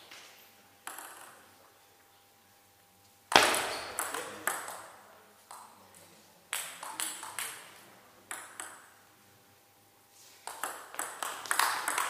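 Table tennis ball being struck by rubber bats and bouncing on the table, each click ringing briefly in the hall. A few separate hits come in the first part, then a fast rally of quick hits near the end.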